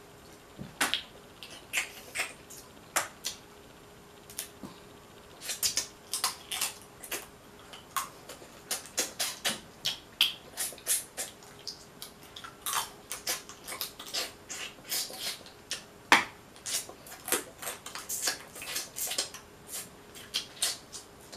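Close-up eating sounds of a person sucking and chewing boiled Dungeness crab meat from the shell: short, wet mouth smacks and clicks, irregular and often several a second in clusters.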